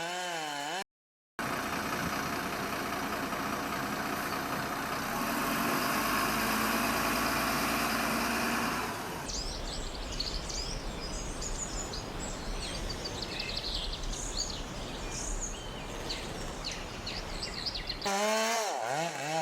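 Outdoor noise: a steady hiss-like noise for several seconds, then birds chirping over a low rumble.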